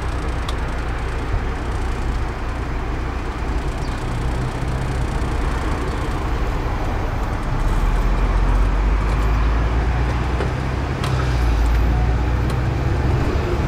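Bus engine running with road noise, heard from on board. It grows louder about halfway through as the bus gets moving and picks up speed.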